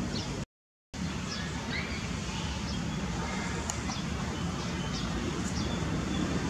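Steady outdoor background rumble with a few brief, high bird-like chirps scattered through it. The sound drops out to total silence for about half a second near the start.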